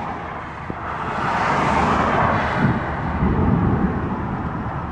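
Road and wind noise of a moving vehicle, a steady rush that swells louder from about a second in and eases after about three seconds.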